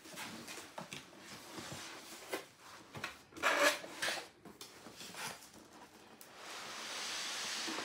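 Cardboard packaging being handled: a cardboard panel pulled out of a shipping box and the box flaps worked open, with scattered rubs and scrapes, a louder scrape about three and a half seconds in, and a longer steady rub near the end.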